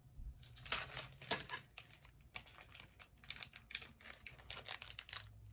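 Faint typing on a keyboard: rapid, irregular light clicks, several a second.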